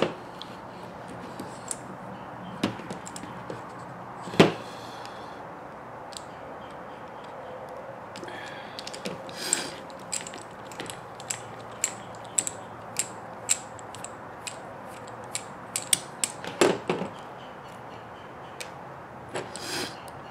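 Small plastic and aluminium parts of an Axial Wraith RC axle clicking and knocking as the axle is handled and worked on by hand, with one louder knock about four seconds in and scattered light clicks throughout, over a faint steady hiss.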